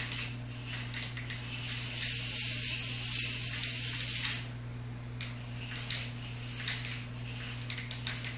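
Small toy RC car driven in short bursts across a tile floor, its little electric motor and wheels making a hissing whir, the longest run lasting about two seconds, over a steady low hum.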